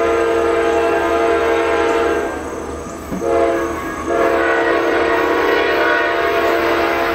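CSX freight locomotive's air horn sounding a chord in three blasts: a long one, a short one about three seconds in, then another long one. This is the close of the long-long-short-long signal that locomotives sound for a grade crossing.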